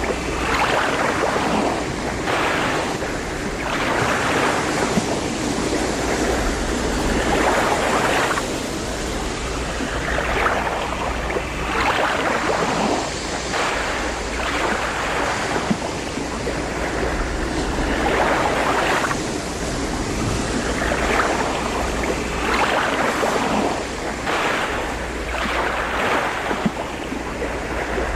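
Ocean waves breaking and washing in, surging every couple of seconds, over a steady low rumble of wind.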